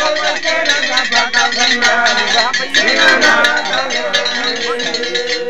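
Music with several voices singing and light metallic percussion ticking over it, some notes held steady.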